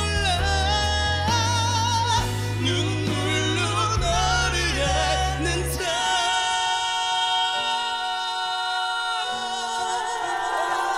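Closing bars of a Korean pop ballad: wordless vocal runs with heavy vibrato over a full band. About six seconds in the bass drops out, leaving a long held note over sustained chords.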